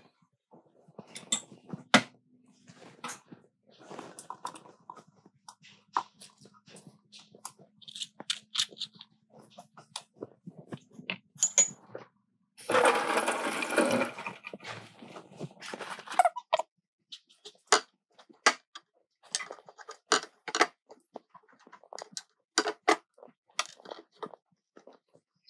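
Food ingredients being spooned and dropped by hand into a blender jug: scattered clicks, knocks and spoon taps, with a burst of rushing noise about halfway through, lasting about a second and a half.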